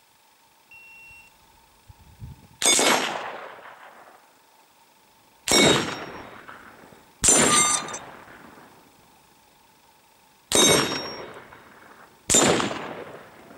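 Five sharp rifle-fire strikes on steel gong targets, spaced two to three seconds apart, each followed by the gong's metallic ringing that fades over a second or more.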